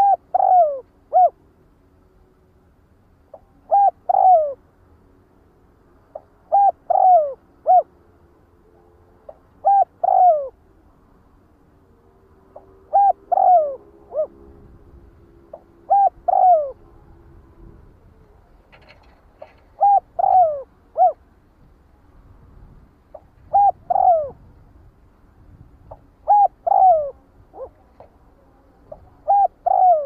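Spotted dove cooing: a three-note coo phrase with a longer, falling middle note, repeated about every three seconds. It is the flock-calling coo that bird trappers play as a lure.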